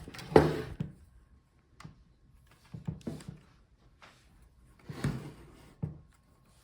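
A pry tool working into the seam of a Lenovo Legion 5 16IRX8 laptop's bottom case, with a few short clicks and scrapes as the case's snap clips are separated from the palmrest; the loudest come about half a second in and about five seconds in.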